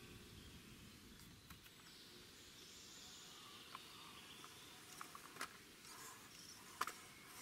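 Near silence: faint outdoor ambience with a few soft clicks scattered through the second half.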